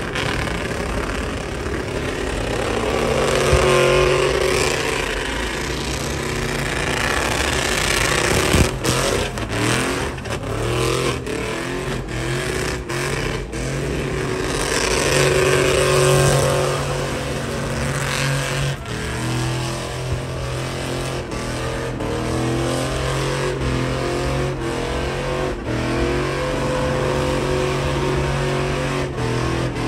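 Chevrolet Silverado pickup doing a burnout in circles: its engine held at high revs with long swells up and down as the rear tyres spin. From about nine seconds in, repeated sharp cracks come through over the engine.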